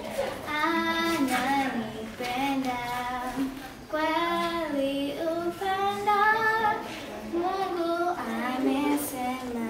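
A child singing solo, a single voice carrying a melody in sustained notes, with short breaths between phrases.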